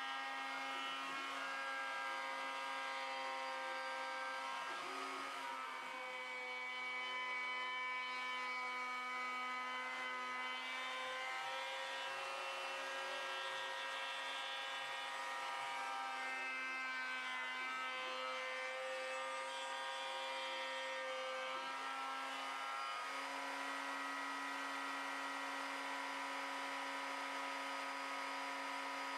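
Homemade CNC router cutting a wooden guitar body: the wood router's motor spins the bit with a steady whine made of several tones, a few of which shift in pitch now and then as the machine moves.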